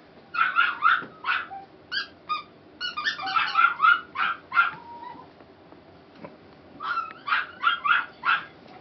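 Siberian husky puppies yipping: short, high-pitched yips and barks in quick runs, with a pause of about two seconds before the last run.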